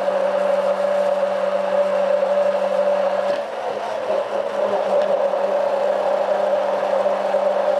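Hand-held immersion blender running steadily in a tall beaker, puréeing a vegetable soup into a smooth cream. Its motor whine wavers and dips briefly about three and a half seconds in, then steadies again.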